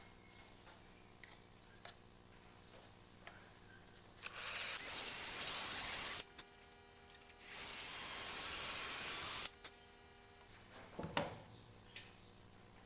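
Cordless drill run in two bursts of about two seconds each, drilling holes through a carbon fibre panel, with a high hissing sound from the bit. A short clatter of knocks follows near the end.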